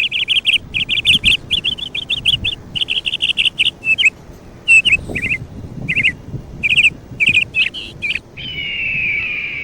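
Bird chirping in rapid runs of short high notes, then one long, slowly falling whistled note near the end.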